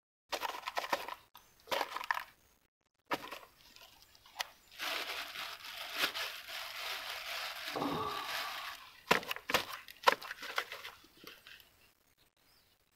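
Leafy plants rustling and crackling as they brush and snap along the side of a wooden boat, with a longer stretch of rustling in the middle and a few sharp knocks after it.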